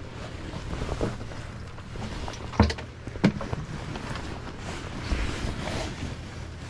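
Wind buffeting the microphone on a fishing boat, with a few sharp knocks against the boat, the loudest about two and a half seconds in.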